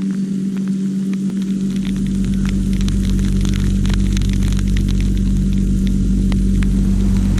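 Irrigation sprinkler spraying water: a steady hiss with scattered light ticks, over a loud steady low hum that grows fuller about two seconds in.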